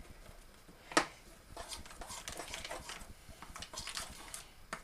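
Metal spoon stirring melted chocolate in an aluminium foil tray, scraping and clicking against the foil, with one sharper tap about a second in.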